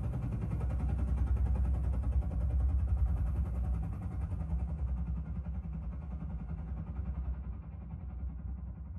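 Film soundtrack of a Navy Seahawk helicopter coming down to land close by: fast rotor chop over a deep rumble, played through home theatre speakers with a subwoofer. It is loudest in the first three seconds, then fades steadily.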